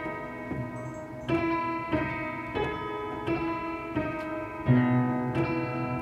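Background music: slow keyboard chords, a new note or chord struck about every 0.7 seconds and left to ring.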